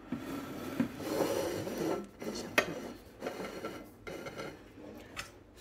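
Ceramic plates sliding and scraping on a wooden tabletop, with a few sharp clinks of dishes or cutlery.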